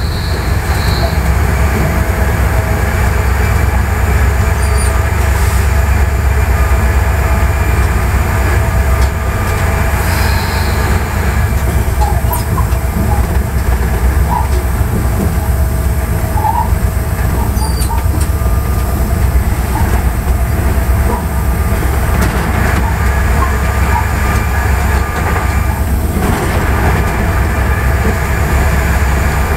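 Cab of an EMD GT36HCW diesel-electric locomotive under way: the two-stroke diesel engine runs with a steady low drone over the rumble of wheels on rail, with a few brief faint wheel squeals around the middle.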